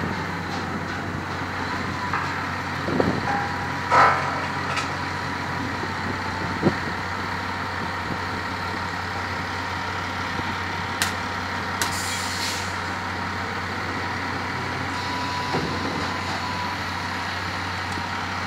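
Oil-well rig machinery running steadily, a low hum with a thin whine over it, broken by a few knocks and clanks (the loudest about four seconds in) and a brief hiss about twelve seconds in.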